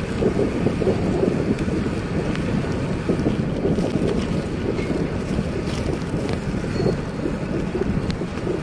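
Wind buffeting the microphone of a camera riding on a moving bicycle: a steady, low rumbling rush.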